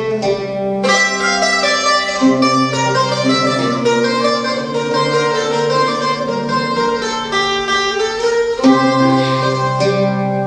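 Instrumental passage on a mandolin and a larger round-backed lute-type string instrument, both plucked, playing a slow medieval-style melody over held low notes.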